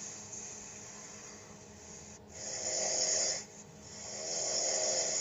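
A sleeping man snoring: soft breathing at first, then two loud snores, the first about two and a half seconds in and lasting about a second, the second starting about four seconds in and lasting a little longer.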